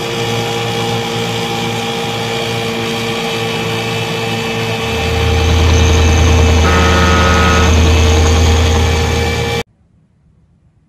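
Boat engines running with rushing water as a large passenger vessel passes close alongside a small motorboat. The deep rumble swells about halfway through as the vessel draws level, then the sound cuts off suddenly near the end.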